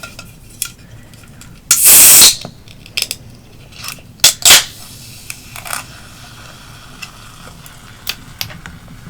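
Diet Pepsi being opened: one loud fizzing hiss of about half a second, followed a couple of seconds later by a few sharp clicks and light taps.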